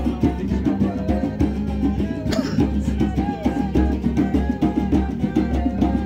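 Djembe-style hand drum played live in a fast, steady rhythm, with some wavering melodic tones above the beat.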